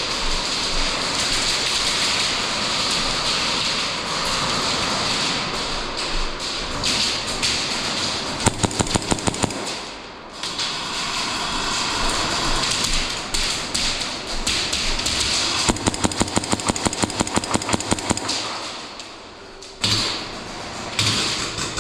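Airsoft guns firing in two rapid bursts of evenly spaced shots, one about a third of the way in and a longer one about three quarters in, over a steady rushing noise.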